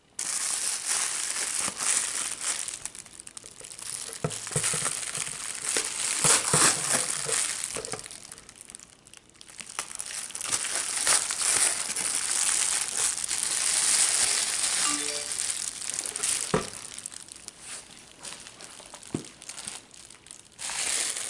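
Foil and plastic packaging crinkling and rustling as it is handled and pulled open, with a brief lull about nine seconds in.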